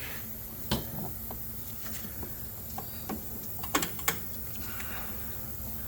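A few light, separate clicks and taps, like parts or tools being handled, over a low steady hum.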